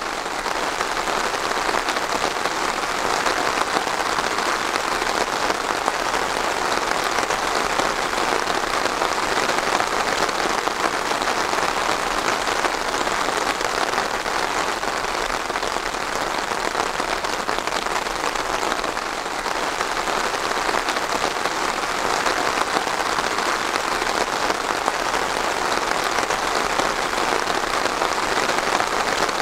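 Steady rain falling on a surface, a dense, even patter of raindrops that holds unchanged.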